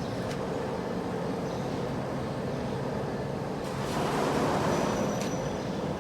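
A CNC wood turning lathe running with a steady mechanical hum and noise, swelling somewhat about four seconds in.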